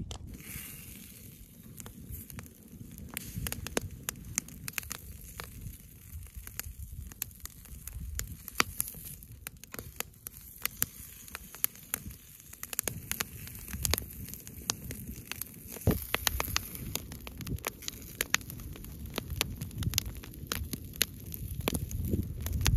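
Wood campfire crackling, with frequent sharp pops and snaps from the burning logs over a low rumble.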